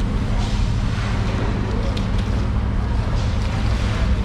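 Steady low mechanical hum under a constant wash of background noise.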